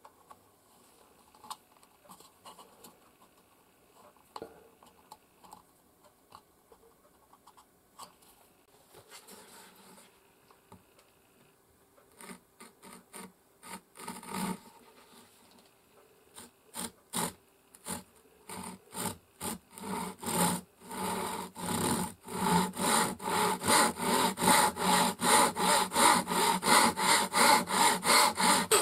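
Light clicks and taps of small wooden pieces being fitted together, then a fine-toothed hand saw cutting through wood. A few slow, separate strokes come first, and from about two-thirds of the way in the strokes settle into a steady rhythm of about three a second and grow louder.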